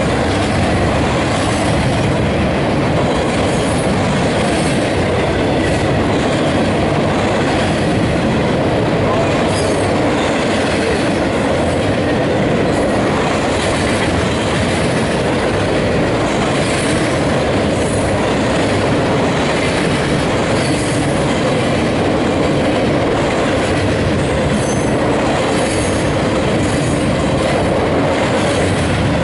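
Double-stack container train passing at close range: a steady, loud rolling noise of its cars' wheels on the rails.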